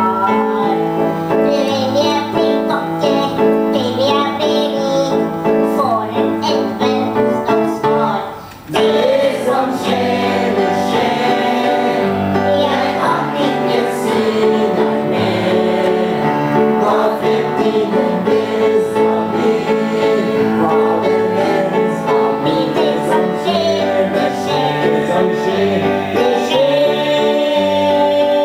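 A group of women singing a Norwegian song together to upright piano accompaniment, with a short break about eight seconds in and a long held final note at the end.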